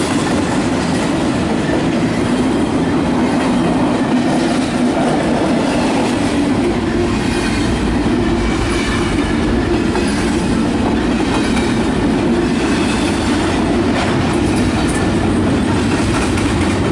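Double-stack intermodal freight cars rolling past: a steady, loud rumble and clatter of steel wheels on the rails, with a faint high wheel squeal in the middle stretch.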